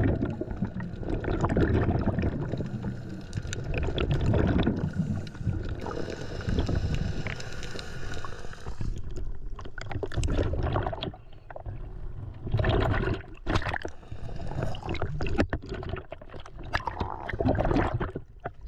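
Underwater rumble and bubbling around a diver for about the first nine seconds. Then the diver breaks the surface, and water splashes and sloshes in irregular bursts as the diver hauls up a barnacle-crusted rope.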